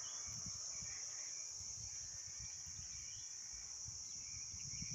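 Insects chirping in a steady, high-pitched chorus, with a low irregular rumble on the microphone underneath.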